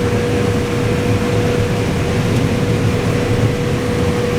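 Combine harvester running steadily while harvesting corn: an even drone of engine and machinery with one constant whine held throughout.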